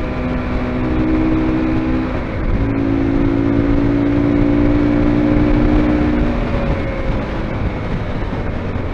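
Zongshen RX3's 250 cc single-cylinder engine running at a steady cruise of about 80 km/h, with wind rushing over the microphone. The engine note changes briefly about two seconds in and eases off after about six and a half seconds as the bike slows slightly.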